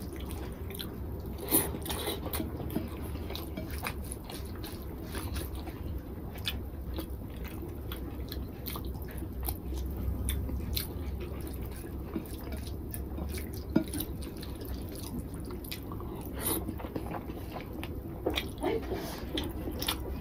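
A person eating rice and egg curry by hand: chewing with many short, wet mouth clicks, and fingers squishing the rice together on a plate.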